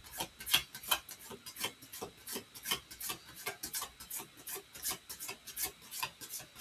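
A deck of oracle cards being shuffled by hand: a quick, uneven run of soft card-on-card slaps and rubs, several a second.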